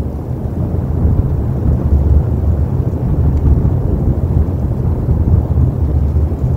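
Low, fluctuating rumble of wind buffeting an outdoor nest-camera microphone.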